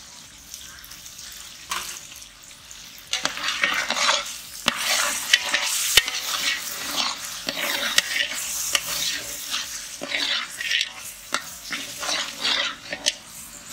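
A long metal ladle stirring thick, simmering gravy in a large aluminium pot, scraping and now and then knocking against the pot. The stirring starts about three seconds in and goes on in uneven strokes.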